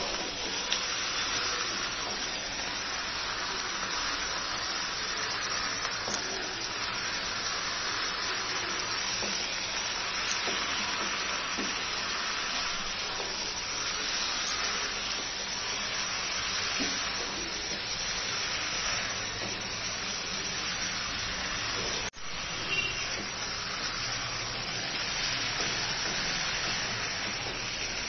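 Chicken gizzards, liver and stomach with potato pieces sizzling steadily in hot spiced oil as they are stirred and dry-fried in masala (kosha) with a spatula. The sizzle cuts out for a moment about 22 seconds in.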